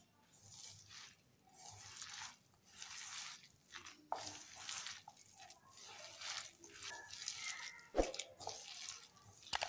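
A hand mixing and squeezing shredded cabbage with gram flour in a stainless steel bowl: soft, wet squishing and rustling strokes about once a second, with a sharp knock on the bowl near the end.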